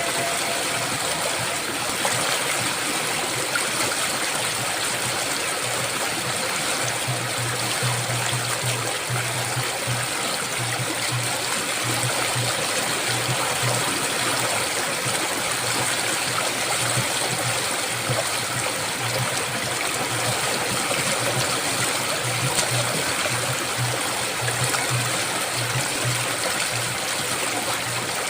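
Steady rush of flowing river water from the Ganges, an even unbroken wash of noise like a stream or waterfall. A low hum comes and goes under it every few seconds.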